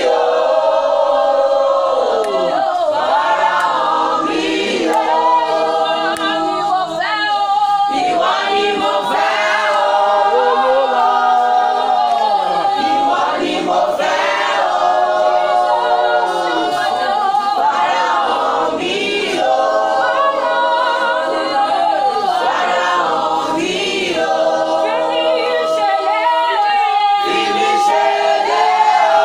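A choir singing unaccompanied, with long held notes.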